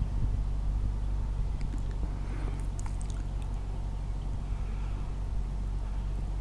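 Steady low hum of a running motor, with a few faint high chirps and clicks about two to three seconds in.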